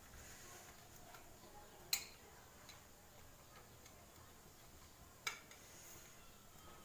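Two sharp clicks about three seconds apart, the first the louder, of a metal spatula knocking against a steel plate as it loosens and lifts steamed sabudana papads.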